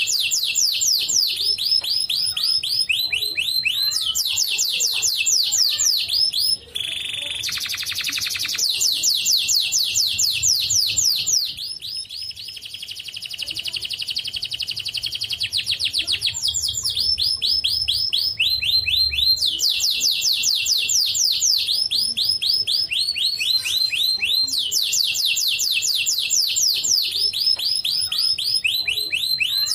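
White canary singing a long, continuous song of rapid trills. Each phrase is a fast run of repeated falling notes, with a brief break about seven seconds in and a softer stretch in the middle.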